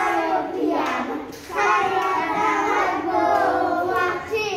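A group of young children singing a children's song together, with a short break a little over a second in.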